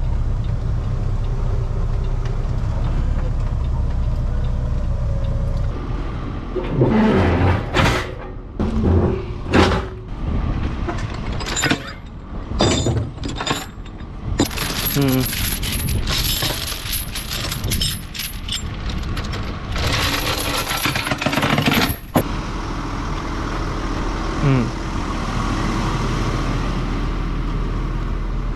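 A diesel engine running steadily at a low rumble. Through the middle there are irregular sharp metallic knocks and clatter, mixed with voice-like sounds, which stop abruptly a little past two thirds of the way through.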